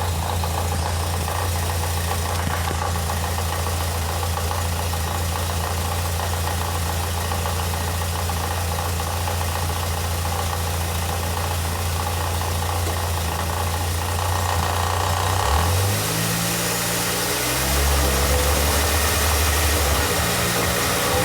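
A Ford EcoSport with a noise from one wheel: a steady low drone with engine sound, which shifts to different pitches several times from about 15 seconds in.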